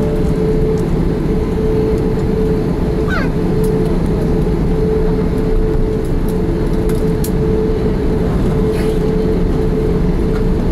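Steady cabin rumble of an Airbus A340-600 taxiing, its Rolls-Royce Trent 500 engines at low taxi power under the wing, with a constant droning tone held over it. A brief faint rising squeak about three seconds in.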